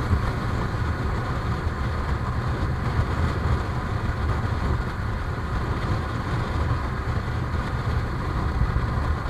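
Yamaha motorcycle engine running steadily while riding at a cruise, mixed with road and wind noise.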